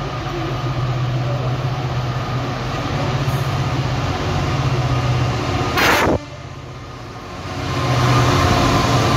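GBRf Class 66 diesel locomotive's two-stroke V12 engine running steadily as it hauls a freight train in. About six seconds in there is a brief loud crackle and a sudden drop in level, then the engine grows louder as the locomotive passes close.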